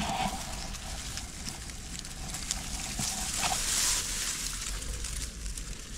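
Water splashing and sloshing as a fish trap is handled and opened, with a few light knocks. The splashing swells about three and a half seconds in.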